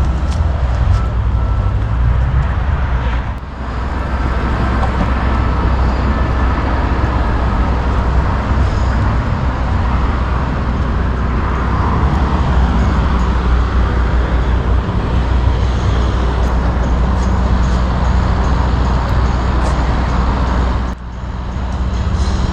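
A vehicle engine running steadily, a low rumble, with two brief drops in level, about three seconds in and near the end.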